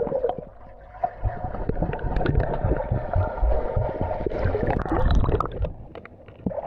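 Swimming-pool water sloshing and gurgling close to the microphone, with small splashes and low thumps as someone moves through it.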